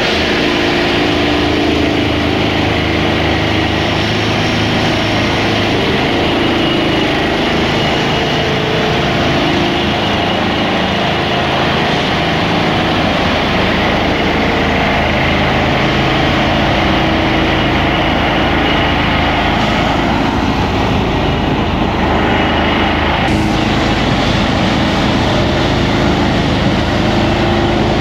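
3X railway track tamping machine running loud and steady while packing and levelling the track, its engine note shifting slightly.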